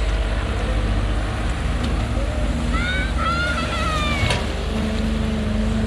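Excavator's diesel engine running steadily. About three seconds in, a short high-pitched call sounds over it, ending in a sharp click.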